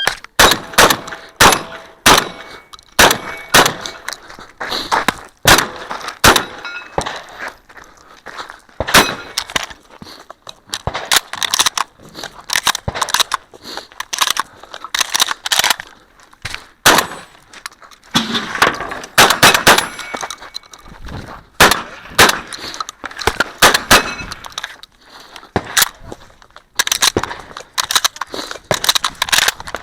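Shotgun fired in rapid strings, many loud sharp shots at irregular spacing, with metallic clangs and clatter between them.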